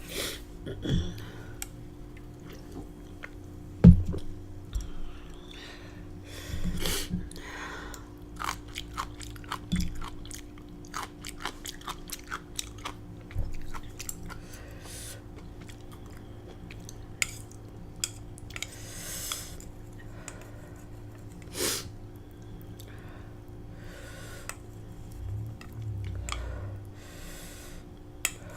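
A person chewing and biting food, with irregular wet clicks and occasional crunches, while eating spicy black bean noodles and fried dumplings.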